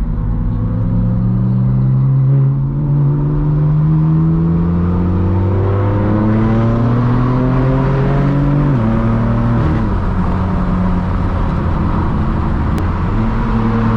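A car engine pulling steadily, its pitch rising slowly for most of nine seconds, then dropping sharply as for a gear change and running steady after.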